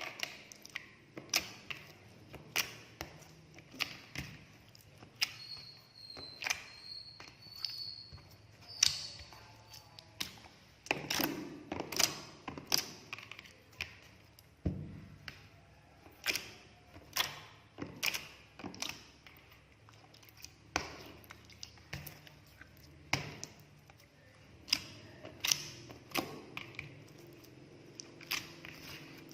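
An irregular string of sharp taps and clicks, roughly one a second, with a busier stretch of scraping and rustling about eleven seconds in: objects being handled and set down.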